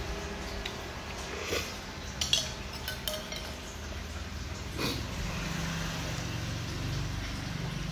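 A metal spoon and chopsticks clinking and scraping against a glass bowl, with a few short sharp clinks. A steady low hum runs underneath and grows louder about five seconds in.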